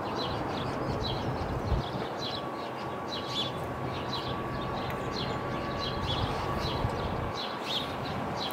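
Small birds chirping in short, repeated calls over a steady low rumble, with a faint steady high tone joining about two seconds in.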